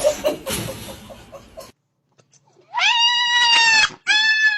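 A noisy scuffle, then a cat gives two long, loud yowls, the second dropping in pitch as it ends.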